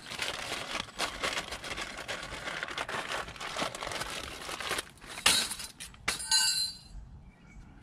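Clear plastic parts packaging crinkling and rustling as it is handled, with many small crackles. Near the end come a couple of sharp, short-ringing clinks of small metal parts.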